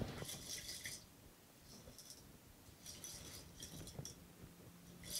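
Small metal bicycle spoke nipples clinking and rattling in a glass jar of soapy water, in a few faint short spells, as they are washed clean of old grease.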